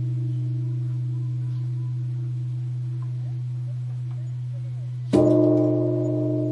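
Background music: a low steady drone under held, ringing bell-like tones, with a fresh strike about five seconds in that rings out over several pitches and slowly fades.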